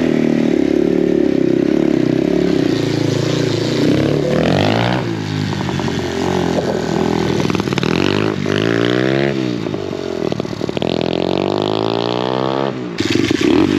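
125 cc pit bike engine revving as the bike pulls away, its pitch rising in several sweeps and dropping between them as it accelerates through the gears. The sound changes abruptly near the end.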